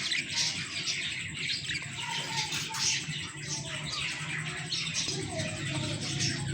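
Budgerigars chattering and warbling without a break: quick scratchy chirps and short rising and falling whistles, over a steady low hum.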